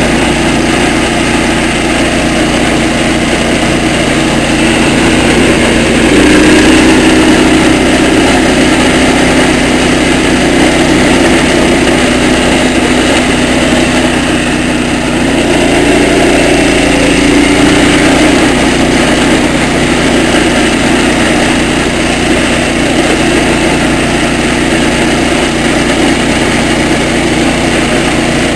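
Speedex garden tractor's engine running steadily under way at speed, its drive geared up with a smaller belt pulley. The engine note rises a little about six seconds in and again about sixteen seconds in.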